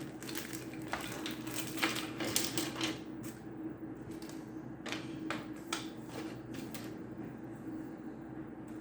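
Small plastic figure base parts being handled and fitted: a quick run of light clicks and rustles for the first three seconds, then a few scattered clicks. A steady low hum sits underneath.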